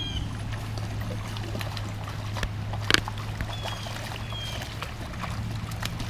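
Rain-swollen creek water rushing steadily. Over it come a few short high chirps near the start and again around four seconds in, and one sharp click about three seconds in.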